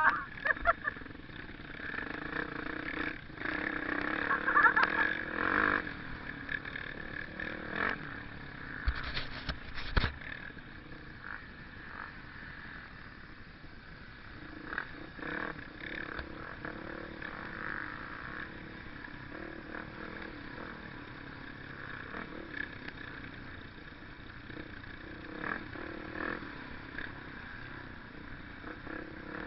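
Off-road trail motorcycle engines running, louder in the first few seconds and steadier after that.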